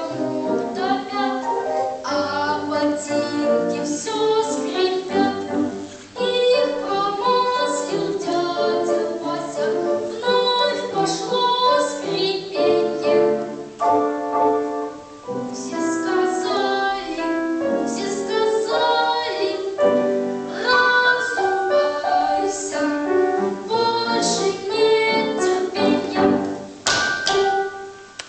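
A young boy singing a Russian children's song with piano accompaniment, the song running to its close near the end.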